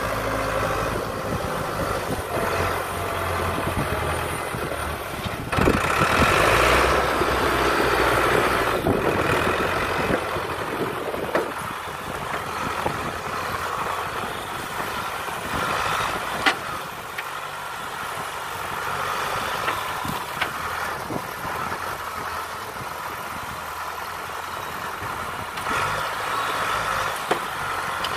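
Diesel engine of a sugarcane grab loader running as it works its hydraulic arm loading cut cane onto a truck, working harder and louder for about five seconds from roughly six seconds in, then settling to a steadier run. A few sharp knocks come through later on.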